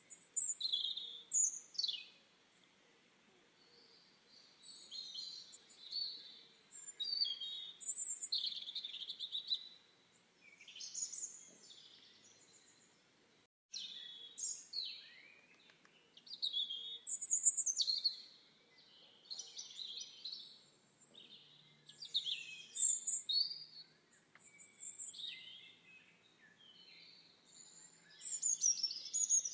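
Songbirds singing in a forest: short, high chirping and warbling phrases follow one another over a faint steady background hiss, broken by a brief gap about halfway through.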